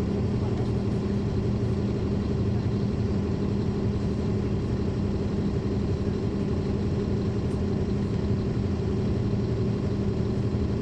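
Caterpillar C13 ACERT diesel engine of a NABI 40-foot transit bus heard from the rear seats inside the cabin, running at a steady, unchanging speed.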